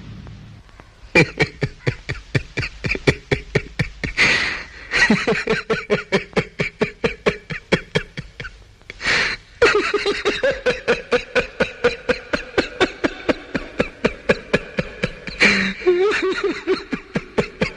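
A man laughing loudly and at length: a fast run of ha-ha pulses, about four or five a second, broken two or three times by a sharp breath in.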